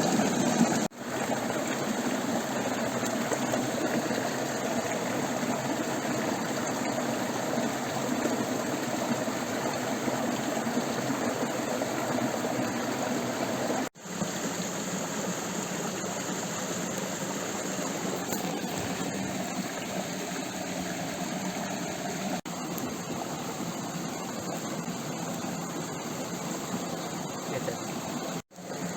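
Stream water running in a steady rush, with three brief sudden dropouts: about a second in, halfway through, and near the end.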